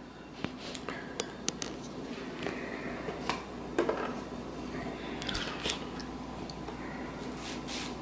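Faint room tone with scattered small clicks and brief rustles of handling close to the microphone, as the camera is moved in over the painting.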